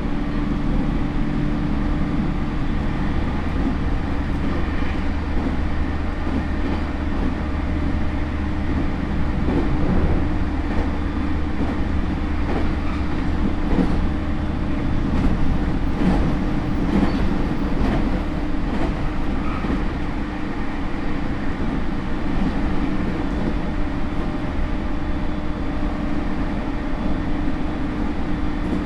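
Running noise heard inside a JR East E231 series motor car at steady speed: the rumble of steel wheels on the rail with a steady hum, and a few rail-joint clacks between about ten and eighteen seconds in.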